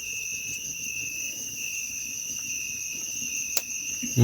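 Night insects, crickets, chirring in a steady high-pitched chorus at two constant pitches. A single faint click a little before the end.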